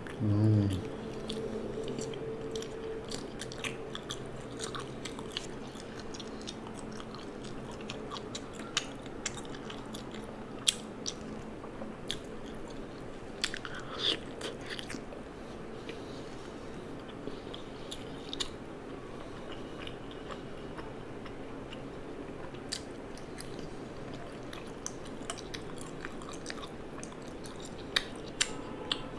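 Close-up eating sounds: a person chewing, with scattered crisp crunches and mouth clicks. A brief loud low sound comes right at the start.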